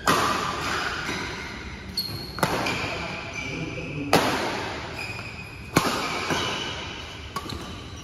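Badminton rally: rackets striking a shuttlecock back and forth, four sharp hits about two seconds apart, each echoing in a large hall.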